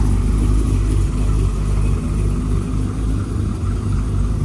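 HSV Maloo ute's V8 exhaust rumbling steadily at low speed as the car rolls slowly past.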